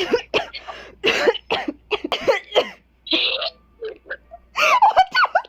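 A girl coughing hard in a long fit of rapid, harsh coughs, with a short break about three seconds in and a strained, throaty stretch near the end.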